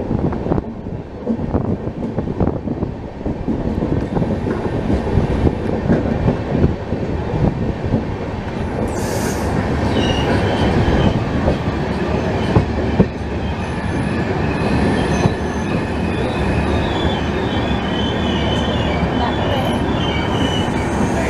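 Passenger train coaches running on curving track, with the wheels rumbling and clattering on the rails. From about halfway through, thin high wheel squeal joins in as the train rounds the curve and runs over the points.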